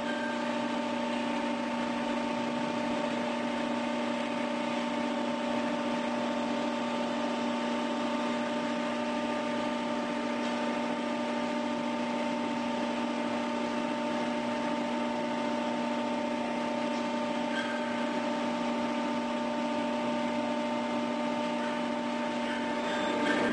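Hydraulic power unit of a 60-ton Accurpress CNC hydraulic press brake running steadily, a constant hum with a whine, as the machine sits powered up during back-gauge calibration.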